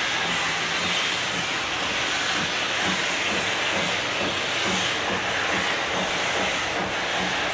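Fowler 4F 0-6-0 steam locomotive No. 43924 working under way, its open cylinder drain cocks giving a loud steady hiss over soft chuffing exhaust beats, about two or three a second.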